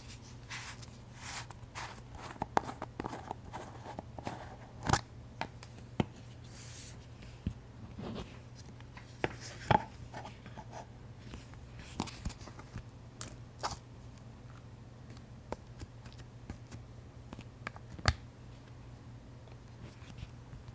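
Handling a plastic slime tub: the screw-on lid twisted off and set down on the table, then the inner lid taken out. The result is a scattered series of sharp plastic clicks, taps and short scrapes.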